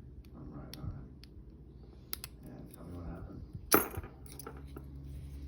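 American A41 padlock being handled, giving light metallic clicks and then one loud sharp metal clack about two-thirds of the way through, over a steady low hum.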